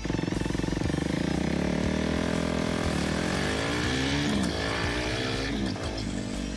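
KTM RC390's single-cylinder engine running under acceleration. It cuts in suddenly, climbs in pitch over the first two seconds, dips about three seconds in, then rises and falls again.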